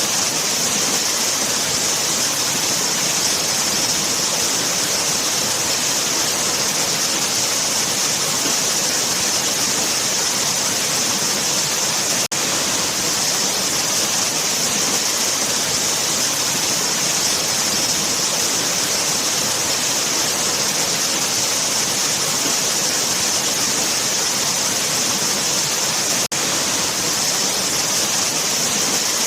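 Waterfall: a steady, hissy rush of falling water. It drops out for an instant twice.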